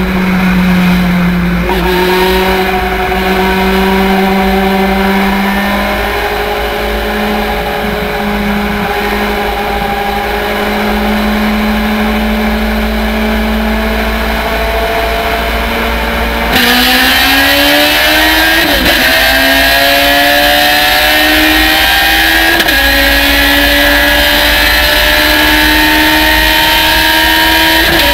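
Thunder Roadster race car engine heard from the cockpit, running steadily at part throttle in second gear for about sixteen seconds. Then the throttle opens: the engine gets suddenly louder and climbs in pitch, dropping back twice at upshifts into fourth gear.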